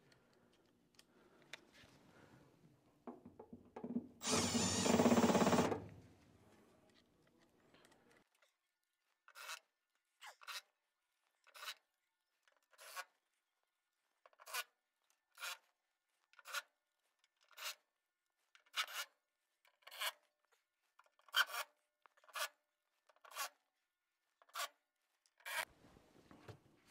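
Silicone sealant being worked onto a furnace collector box to form a new gasket: a louder scraping burst about four seconds in, then a long even run of short rubbing strokes at about one a second.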